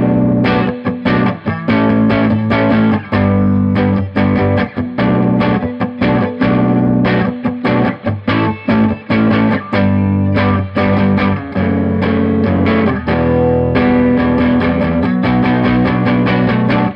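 Electric guitar played through a Fender Champ 12 tube practice amp with its volume all the way up: a continuous stream of picked notes and chords with some breakup. Heard through a cell phone microphone's compression limiter.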